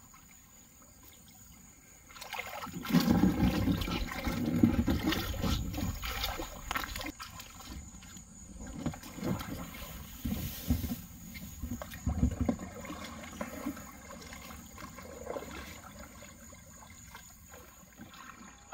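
Water sloshing and splashing around a foldable kayak as it is launched and paddled, with irregular paddle strokes and drips. The loudest stretch comes for a few seconds starting about three seconds in, after which the strokes grow softer.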